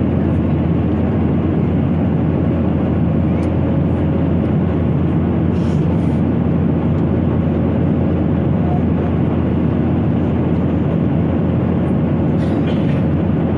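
Airliner cabin noise in flight: a steady, unchanging rush of engine and airflow noise.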